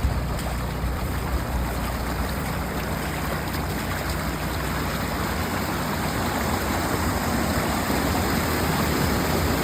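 Steady rush of running floodwater. Wind buffets the microphone with a low rumble in the first second or so.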